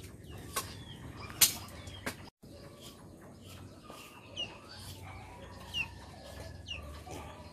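Chickens clucking, with a few short high chirps in the second half and a couple of sharp clicks in the first second and a half.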